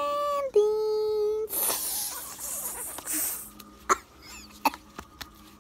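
A child's high-pitched held vocal sound, two long notes at a steady pitch, for about the first second and a half. Then comes a rushing noise for about two seconds, and a few sharp taps of a toy and hands handled near the microphone.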